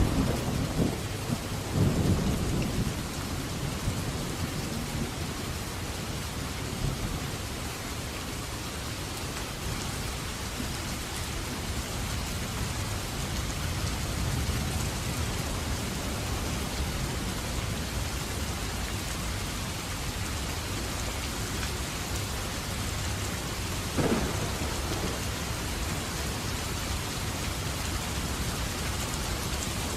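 Steady rain during a thunderstorm. Thunder rumbles low in the first few seconds and fades, and a single short sharp crack comes about three quarters of the way through.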